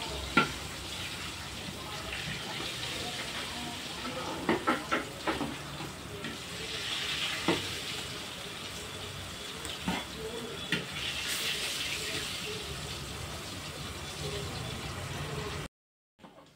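Masala-coated fish pieces sizzling steadily as they deep-fry in hot oil in a wide steel pan on a wood-fired stove. A metal ladle knocks against the pan a few times as the pieces are turned. The sound cuts off suddenly about a second before the end.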